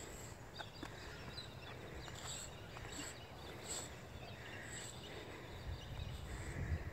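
Faint outdoor background with birds calling now and then in short, high, repeating calls.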